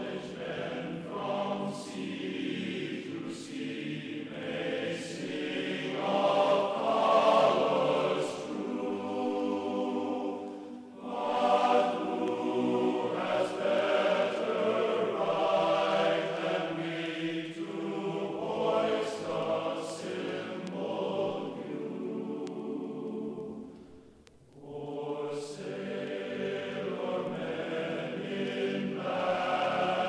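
Background choral music: a choir singing slow, sustained chords, with a brief pause about three-quarters of the way through.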